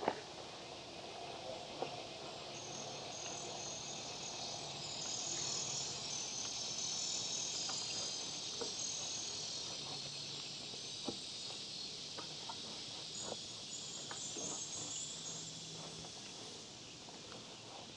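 Insect chorus: a steady high chirring that swells in the middle and eases toward the end, with a few faint scattered clicks.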